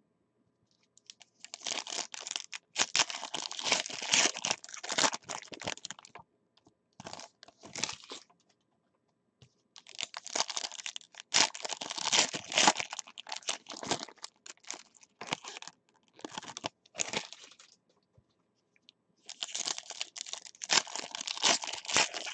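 Foil wrappers of football trading-card packs being torn open and crinkled by hand, in three bouts of crackling with short pauses between.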